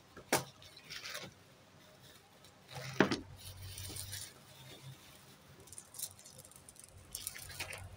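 Costume jewellery clinking and a plastic bag crinkling as the pieces are unwrapped and handled, in short irregular bursts with one sharper clack about three seconds in.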